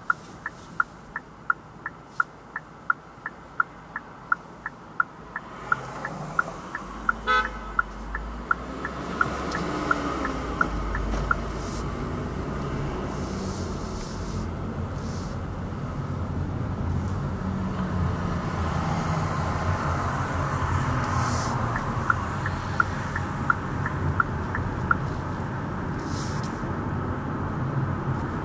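A car's turn-signal indicator ticking evenly in the cabin as the car pulls away, with engine and road noise rising under it. A short car horn toot comes about seven seconds in. The ticking stops about a third of the way through and comes back briefly near the end.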